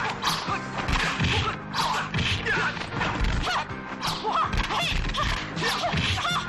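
Fight-scene soundtrack: music under repeated sharp punch and kick impact sound effects, several hits coming at uneven intervals of about half a second to a second.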